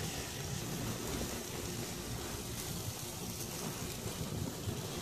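Steak and cheeseburger patties sizzling on a gas grill, a steady hiss, with wind rumbling on the microphone.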